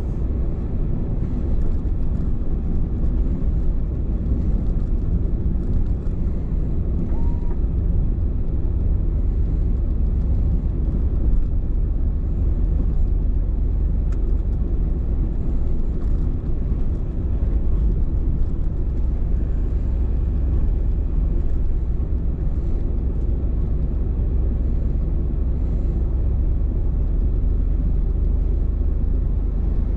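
Steady low engine and tyre rumble heard from inside a vehicle's cabin as it drives along a snow-covered road.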